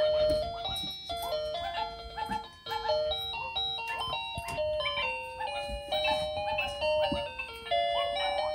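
Pink toy electronic keyboard playing a simple beeping melody, clean electronic notes stepping up and down one after another.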